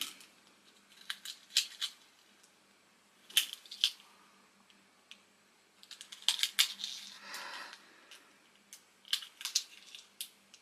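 Small plastic parts being handled: scattered light clicks and taps in little clusters, with a short crinkling rustle about seven seconds in, as the figure's battery compartment and tiny button batteries and their packaging are worked.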